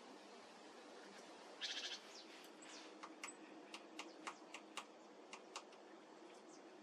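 Great tit hammering a seed against a branch with its bill: a run of sharp taps, about two to three a second, preceded a second and a half in by a short buzzy rattle.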